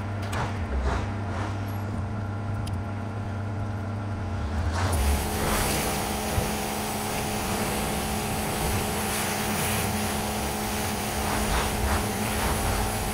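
Pressure washer's motor running with a steady hum; about five seconds in the water jet is triggered and a continuous hiss of spray joins the motor sound.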